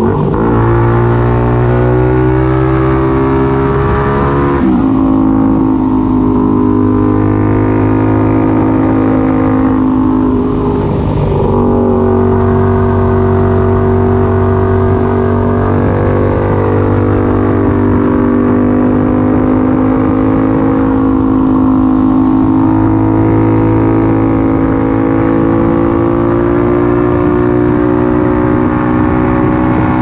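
Benelli 752S parallel-twin engine with its silencer removed, pulling hard under a rider. The engine note climbs for a few seconds and falls sharply about four and a half seconds in. It dips again around eleven seconds, then holds a steady mid-rev note with small rises and falls.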